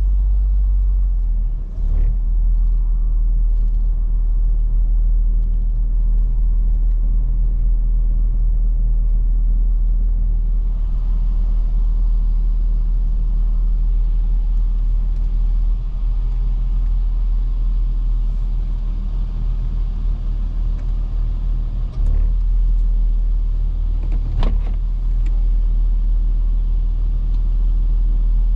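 Car driving, heard from inside the cabin: a steady low engine and road rumble, with a few brief knocks along the way.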